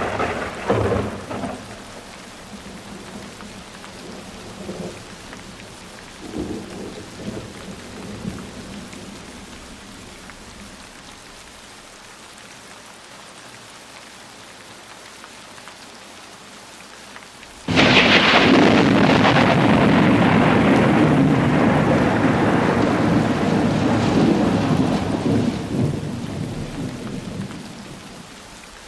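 Heavy rain falling steadily through a thunderstorm. A rumble of thunder fades away in the first few seconds. About two-thirds of the way through, a sudden loud thunderclap breaks out and rolls on for about eight seconds before dying away.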